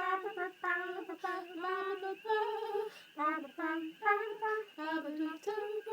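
A high female voice singing a melody unaccompanied, with held notes changing pitch every fraction of a second.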